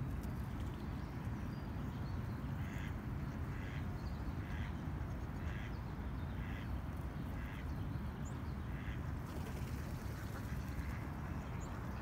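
A mallard quacking in a slow series, about one quack a second for several seconds, over a steady low hum of distant traffic.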